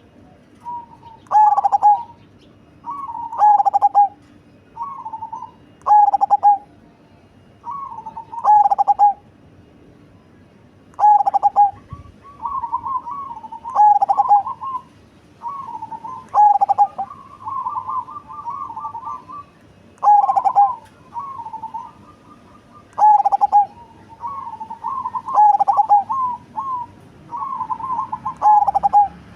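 A black 'cemani' zebra dove (perkutut) cooing over and over, in short, deep, rolling phrases every one to three seconds. About two-thirds of the way through there is a quicker run of repeated notes.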